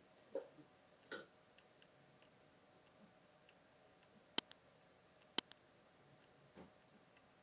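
Two computer-mouse clicks about a second apart, each a quick press-and-release double click, with faint rustling of hands handling a hand coffee grinder before them.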